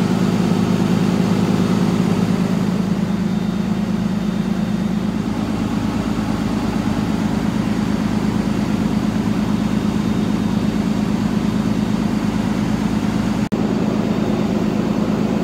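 Heavy truck engine idling steadily in an even, low pulsing run, with a very brief break near the end.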